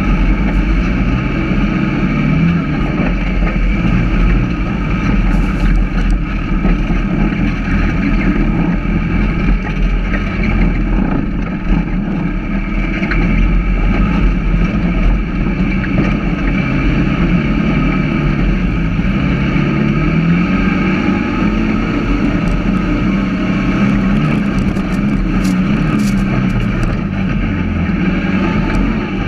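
Dune buggy engine running steadily under load while driving at speed over sand, its pitch rising and dipping slightly a few times as the throttle changes.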